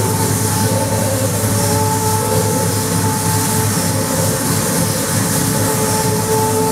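Improvised electronic drone soundscape from a synthesizer keyboard and a microphone voice run through effects: a dense, steady, rumbling texture with two long held tones over a low hum.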